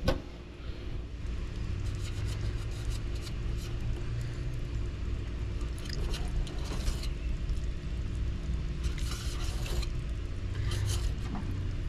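Fillet knife slicing the rib bones out of a black drum fillet on a stainless steel table, heard as a few short scrapes. Under it runs a steady low rumble with a faint hum.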